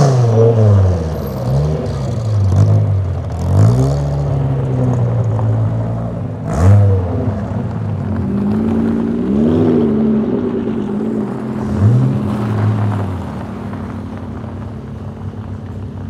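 Dodge Viper GTS's 8.0-litre V10 revved in a series of short throttle blips while the car moves off slowly, the pitch rising and falling again and again. The sharpest blip, about six and a half seconds in, is the loudest. Near the end the engine settles to a quieter, steadier note.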